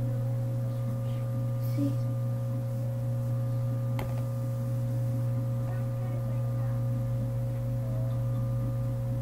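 Steady electrical hum, a strong low drone with fainter higher tones held above it, and one sharp click about four seconds in.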